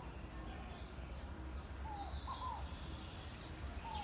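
Birds calling: short arched whistled notes recurring in small groups, with fainter high chirps, over a steady low rumble.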